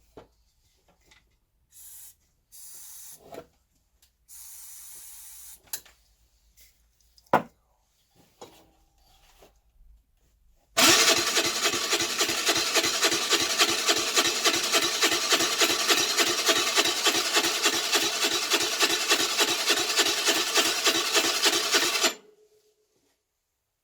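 Electric starter cranking a Baotian Tanco 50cc four-stroke moped engine for about eleven seconds, a fast steady mechanical rhythm, without the engine catching, then stopping abruptly. The owner takes the failure to start to be flooding from a fouled carburettor, with the spark plug wet. Before the cranking there are a few short hisses and a sharp click.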